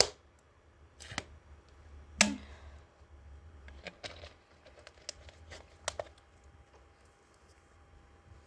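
A handful of sharp clicks and taps at uneven intervals, the loudest about two seconds in.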